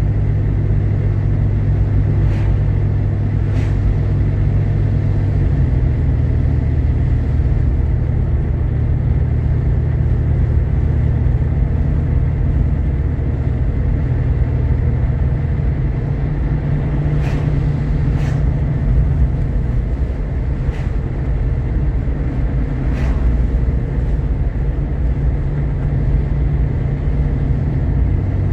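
Interior drive noise of a Jeep Grand Cherokee with a 3.7-litre V6: a steady low engine and road rumble while cruising, its pitch shifting slightly about five seconds in. A few brief sharp ticks stand out, twice early on and four times in the second half.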